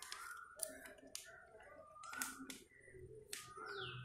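Sheets of a paper booklet being handled and shifted, giving a string of crisp clicks and rustles, with a short falling chirp near the end.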